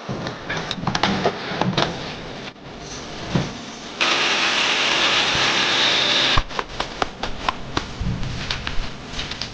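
Knocks and clatter of parts being handled during air-conditioner installation, broken about four seconds in by a loud steady hiss that lasts about two and a half seconds and cuts off suddenly.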